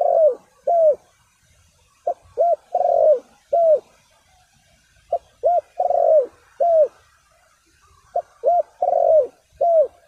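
Spotted dove cooing: a repeated phrase of four notes, two short, one longer, then one short, each note rising and falling. The phrase comes roughly every three seconds, with three full phrases after the end of one at the start.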